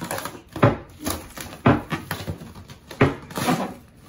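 Blue rubber party balloon squeezed and pushed between hands, squeaking and thudding in several sharp sounds about a second apart. It does not pop.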